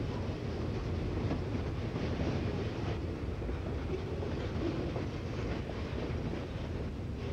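Freight train of boxcars rolling past: a steady rumble of steel wheels on the rails with repeated clicks and clacks.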